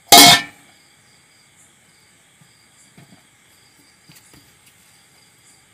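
Aluminium lid set down on an aluminium kadai with one loud clank just after the start, ringing briefly, then a few faint taps as the lid is pressed and settled into place.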